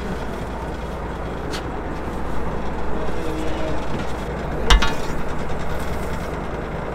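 Fishing boat's engine running with a steady low drone and rushing noise. A light click comes about a second and a half in, and a sharp knock a little after four and a half seconds.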